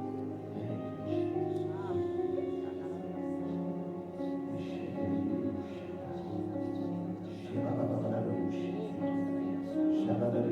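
Soft keyboard music playing sustained chords, the held notes changing every second or two, typical of church prayer-time backing.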